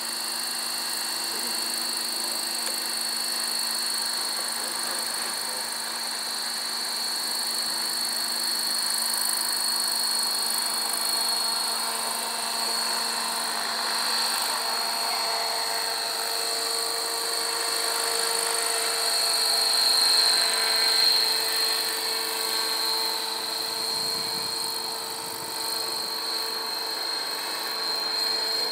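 600-size radio-controlled scale Bell 212 helicopter in flight: the rotors whirr under a steady high-pitched motor and gear whine, swelling louder about two-thirds of the way through.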